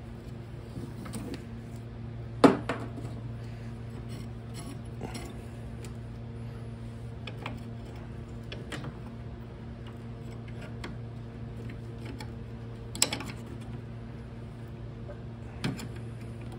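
Scattered metallic clicks and clinks of snowmobile engine parts and cables being handled, the loudest a sharp knock about two and a half seconds in, with two more near the end. Under them runs a steady low hum.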